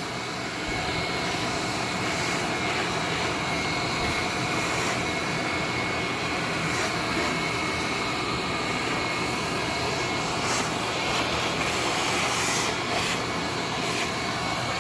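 A small electric blower motor running steadily: an even rushing noise with a thin, constant high whine over a low hum.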